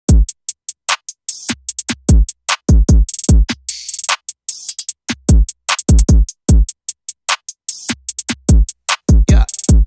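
Electronic intro music: a drum-machine beat of deep kick drums that drop in pitch, with quick hi-hat ticks and snare or clap hits.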